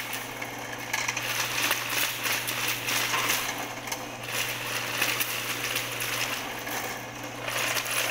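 Electric drum-type drain-cleaning machine running, its motor humming steadily while the spinning steel cable rattles unevenly as it is fed into a floor drain to clear a clogged kitchen line.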